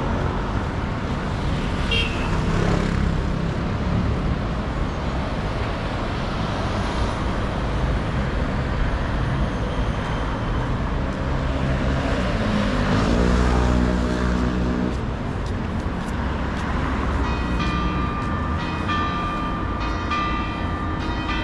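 Busy city avenue traffic: a steady rumble of passing vehicles, with one engine rising in pitch and getting louder as it accelerates past about two-thirds of the way through.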